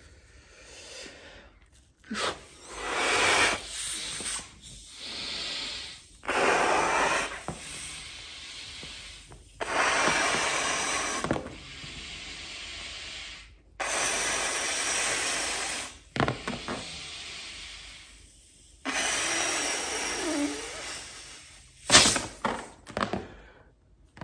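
Forceful breaths blown into a thick black rubber glove, inflating it like a balloon: about six long, loud puffs of air a few seconds apart, with quieter gaps between them. A few short, sharp sounds come near the end.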